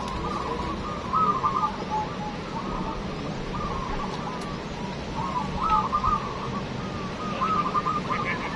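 Zebra doves (perkutut) cooing: rippling, bubbling coo phrases near 1 kHz repeat every second or two and sometimes overlap, over a steady background hiss.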